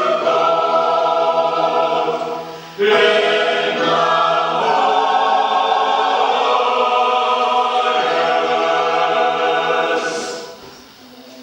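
A community choir singing a carol in sustained chords. The singers breathe briefly about three seconds in, and the phrase dies away near the end.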